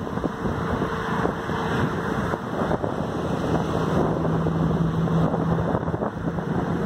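Motorcycle riding along a city road: a steady engine drone, its note held for a few seconds in the middle, under heavy wind buffeting on the microphone.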